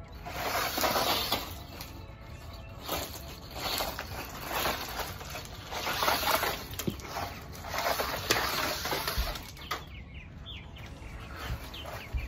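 DEERC 300E brushless RC truck driving over gravel: tyres crunching and scattering stones, the noise swelling and fading every second or two.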